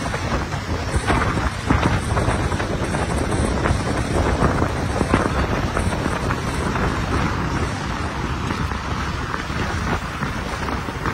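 Wind buffeting the microphone of a camera moving along with a road bicycle ride, a steady rumbling rush with constant flutter and road noise beneath.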